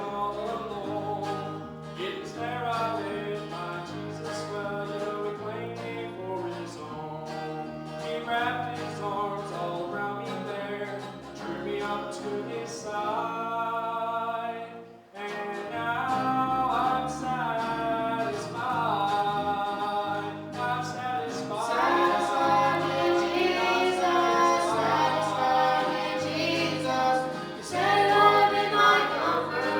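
Gospel music: voices singing over guitar and a stepping bass line. The music breaks off briefly about halfway through, then comes back in fuller and louder.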